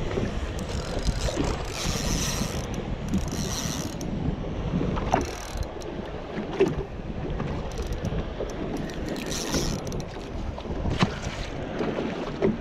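Spinning reel working in short whirring, clicking bursts while a hooked redfish is played toward the boat, over steady wind on the microphone.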